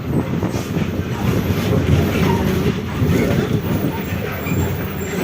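Volkswagen 17-230 OD bus driving, with a steady low rumble and rattle from the drivetrain. Over it runs a wavering whine from the rear differential, which is growling loudly.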